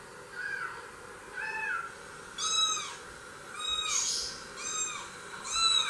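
Recorded kitten mewing played back from a video: about six high-pitched squeaky mews, each rising then falling in pitch, roughly one a second.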